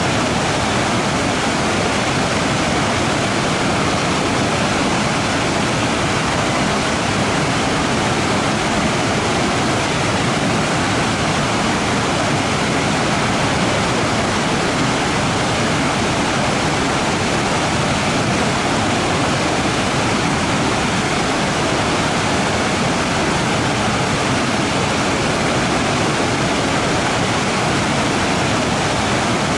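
Waterfall rushing steadily, a constant dense roar of falling water with no change in level.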